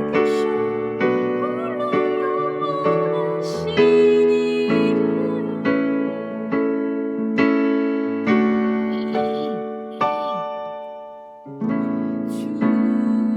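Piano keyboard playing a slow hymn in sustained chords, each struck and left to ring. Near the end a chord dies away almost completely before the next is struck.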